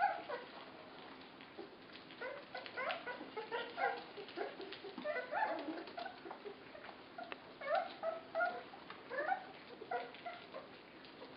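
A litter of 24-day-old border collie puppies giving many short, high squeaks and whimpers as they eat together, coming in overlapping clusters.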